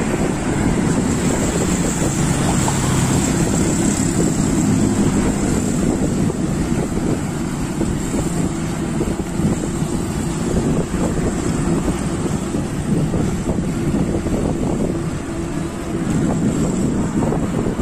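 Steady wind rushing over the microphone of a camera on a moving bicycle, over a low rumble of road noise.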